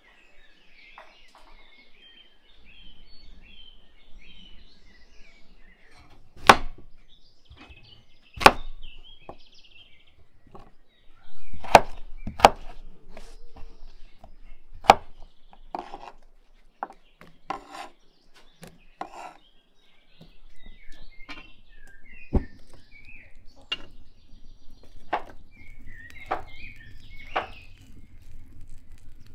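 Sharp chopping knocks on wood, single loud strokes spaced a second or more apart with quicker runs between them. Small birds chirp and twitter at the start and again through the second half.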